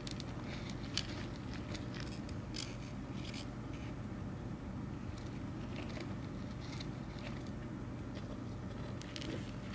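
Soft, irregular scratching and crackling of loose soil as a common rain frog burrows into it, busiest in the first few seconds and again near the end, over a steady low hum.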